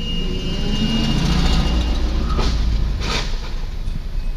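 Road vehicle running with a steady low rumble, and two short sharp noises about two and a half and three seconds in.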